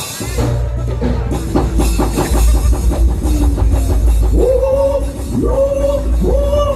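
Live Javanese music from a wayang kulit performance ensemble: busy drumming over a deep, steady bass. Near the end, three notes swoop up and hold, one after another.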